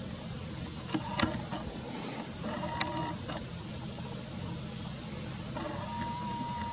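Nikon Coolpix P900's zoom motor whirring as the lens zooms out: two short whirs with sharp clicks in the first three seconds, then a longer steady whir starting a little before six seconds in. A steady high chirring of crickets continues underneath.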